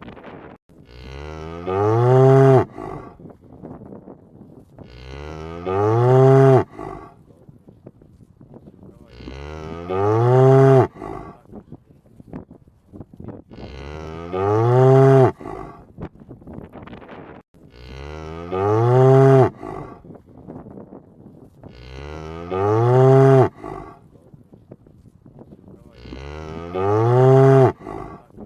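A cow mooing: seven long moos at a steady pace of about one every four seconds, each rising in pitch and then breaking off.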